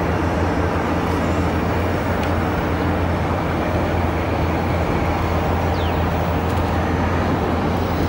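Steady low hum under a constant rush of noise.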